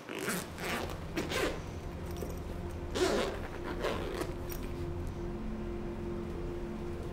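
A zip on a bag or case pulled open in several quick strokes, then two louder rustling scrapes as the case is handled and opened. A steady low hum comes in about three seconds in.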